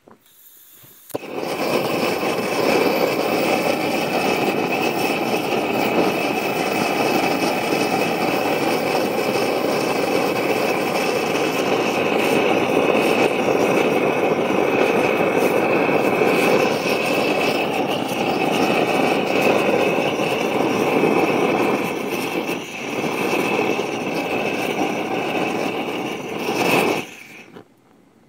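Gas torch burning steadily on a baseball: a loud, even hiss that starts about a second in, dips briefly near the end, and cuts off suddenly when the torch is shut off.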